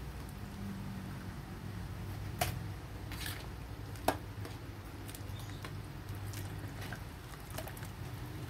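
Coconut milk being poured and squeezed from a carton into a simmering aluminium wok, with about five sharp clicks as the carton and spoon knock the metal, over a steady low hum.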